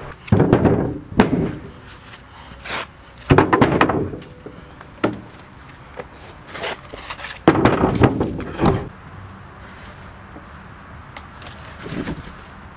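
Logs and pieces of wood knocked together and dropped while clearing a woodpile: a series of separate hollow wooden thuds and clatters, the loudest clusters about half a second, three and a half and seven and a half seconds in, with a weaker knock near the end.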